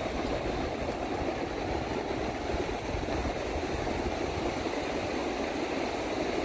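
Steady rush of surf breaking along a flat sand beach, with a low, uneven rumble of wind on the microphone.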